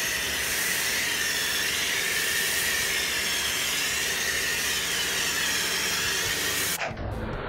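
Pressure washer spraying snow foam through a foam lance onto a car's bodywork: a loud, steady hiss that cuts off abruptly near the end.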